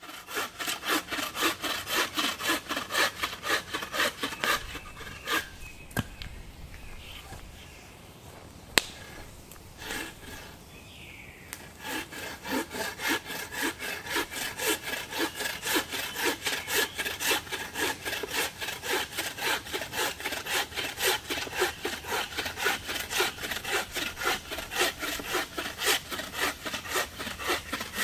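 Wooden-framed bucksaw cutting through a log in quick, even rasping strokes, about two to three a second. The sawing pauses for several seconds, broken by one sharp click, then starts again and runs steadily.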